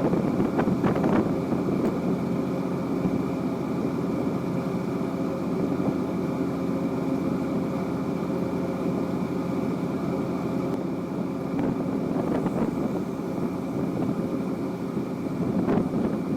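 Fishing boat's engine running steadily, a constant drone, with a few faint knocks near the start and near the end.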